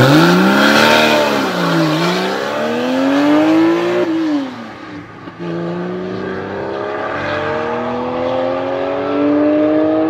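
Porsche 991 Carrera 4's flat-six accelerating hard from a standing start. The revs climb sharply, dip about two seconds in and climb again, fall at an upshift about four seconds in, then rise slowly and steadily in the next gear as the car pulls away.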